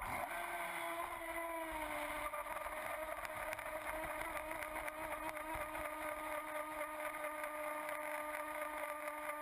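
Electric motor of a radio-controlled Miss Geico racing boat whining as the boat runs across the water, with the hiss and splash of the hull, heard close up from a camera on the hull. The whine comes in suddenly at the start, settles a little lower in pitch over the first two seconds, then holds steady.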